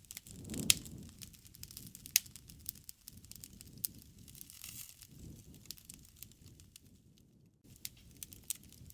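Wood fire crackling, with frequent sharp pops and snaps over a low rumble of flames that swells now and then, and a brief lull near the end.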